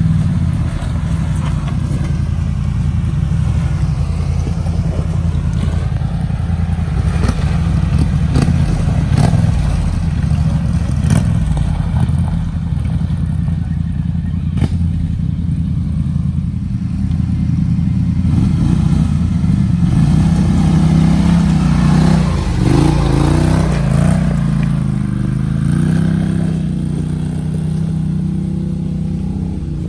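ATV engine running under load on a rocky trail, revving up and down about two-thirds of the way through, with scattered knocks of tyres and suspension over rocks.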